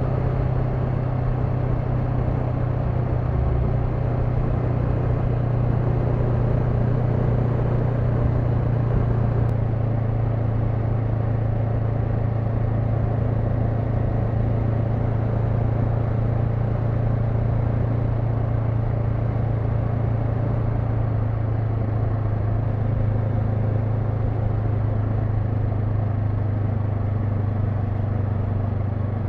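Honda NX500's 471 cc parallel-twin engine running at a steady cruise. The note holds even and dips slightly lower near the end.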